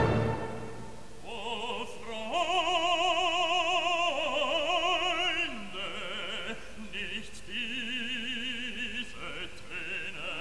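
Background music: an operatic voice singing long held notes with wide vibrato, the pitch changing every second or two.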